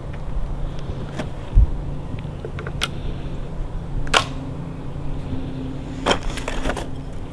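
Sharp metallic clicks and snaps of a single-shot 12-gauge break-barrel shotgun being handled and loaded, a strong click about four seconds in and a quick cluster of clicks near the end, over a steady low hum. A dull thump comes early on.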